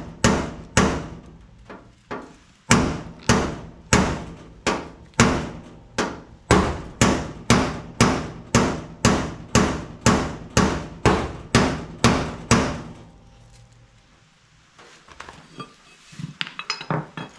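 Hammer blows on the sheet-metal front body panel of a 1979 Ford F250, knocking out a dent. The strikes come steadily at about two a second, each with a short metallic ring. They pause briefly about two seconds in and stop about thirteen seconds in.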